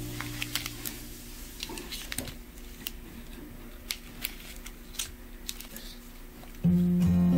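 Foil-lined plastic candy wrappers handled and moved, giving scattered sharp crinkles and clicks. Guitar music fades out at the start and comes back loud near the end.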